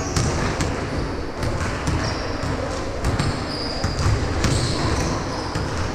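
Basketball bouncing on an indoor court during a game: irregular thuds a fraction of a second to about a second apart, with short high squeaks between them over the hall's low rumble.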